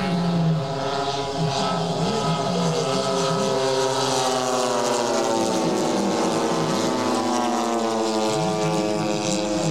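Propeller engines of several radio-controlled scale model warbirds, three of them Douglas Skyraider A-1s, flying together in formation. It is a steady drone of more than one engine whose pitch slowly wavers and shifts as the planes pass.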